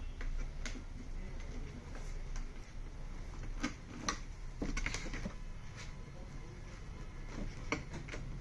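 Scattered light clicks and taps of small screws and a screwdriver being handled while fitting speakers into a TV's plastic back, with a cluster of clicks in the middle, over a steady low hum.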